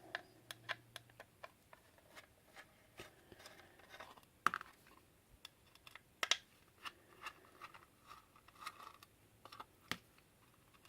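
Small Torx screwdriver working the cover screws out of a 2.5-inch hard drive's cast alloy case: light, irregular clicks and scratches, with a few sharper clicks about four and a half and six seconds in.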